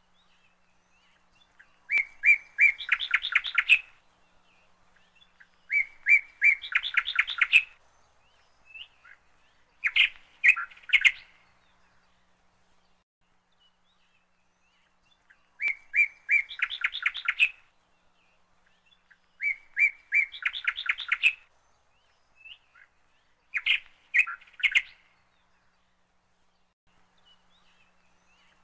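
A small bird sings six short phrases of rapid, high chirps, each a second or two long, separated by pauses of a few seconds.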